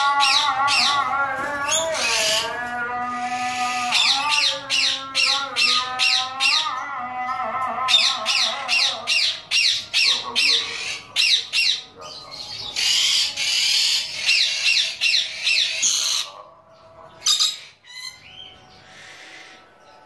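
Rainbow lorikeet screeching in quick runs of shrill, harsh calls, several a second, with short pauses. The calls thin out to a few near the end.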